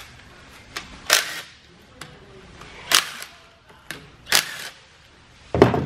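A cordless power tool running in four short bursts about a second and a half apart, with small clicks between, as it undoes the bolts that hold the stationary gear on a Mazda 13B rotary engine's end housing.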